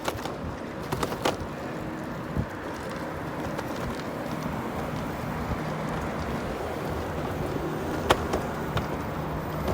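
Bird electric rental scooter rolling at speed: a steady rush of wheel and wind noise with a faint motor hum and a few sharp clicks.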